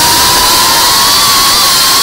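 GEPRC Mark 5 FPV quadcopter's brushless motors and propellers at speed, recorded on board: a loud, steady whirring rush with a high whine whose pitch wavers slightly as the throttle changes.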